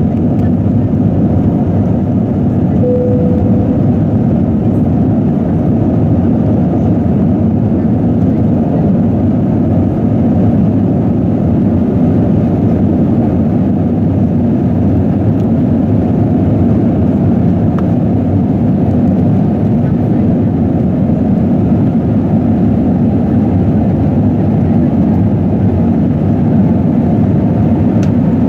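Cabin noise of an Airbus A319 climbing out just after takeoff: a loud, steady rush of the jet engines at climb power and the airflow, heard from a seat by the wing. A brief tone sounds about three seconds in.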